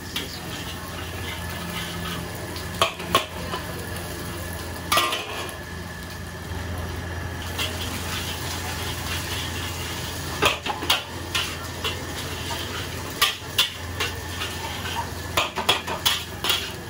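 A metal ladle clanking and scraping against a steel wok during stir-frying, with sharp knocks scattered throughout and a cluster of them near the end. A steady low hum and frying sizzle run underneath.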